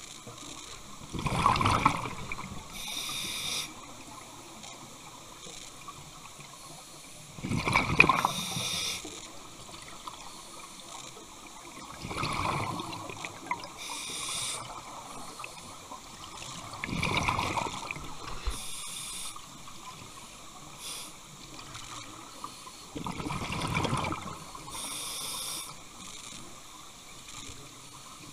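Scuba diver breathing through a regulator underwater: five breaths about five seconds apart, each a rush of exhaled bubbles followed by a short hiss.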